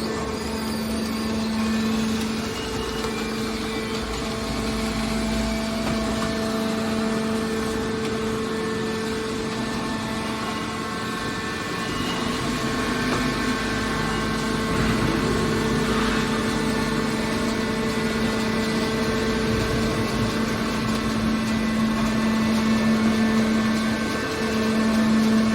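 Hydraulic scrap metal baler shear running with a steady machine hum.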